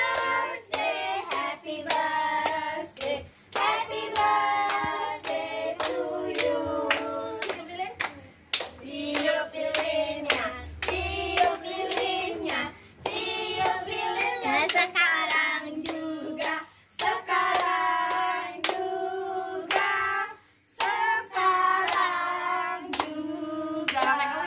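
A small group singing a birthday song together and clapping along in time, about two claps a second.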